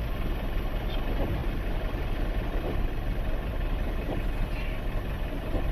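Steady rumble inside a car moving slowly through a flooded street in heavy rain: the engine running under a constant wash of rain and water noise.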